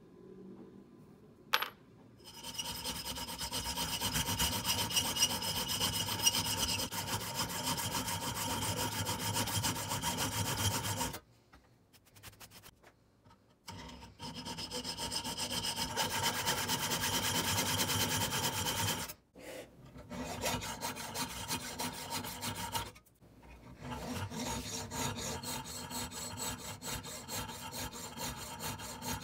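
A hand or workshop tool cutting or rasping at a workpiece in fast continuous strokes, in four spells separated by short pauses. A single sharp click comes just before the first spell.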